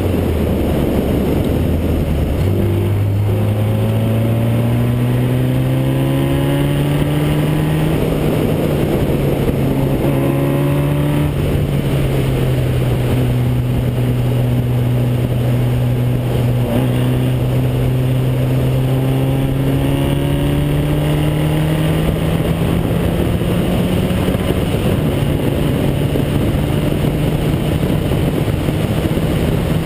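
Formula Basic single-seater race car's engine heard from on board. Its pitch drops in steps near the start as the car slows for a corner, then climbs slowly under acceleration with a couple of dips, and holds high near the end, over steady wind and tyre noise.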